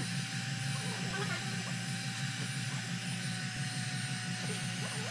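Electric heat gun switched on just at the start and running steadily: an even hiss of rushing air with a thin high whine from its fan motor.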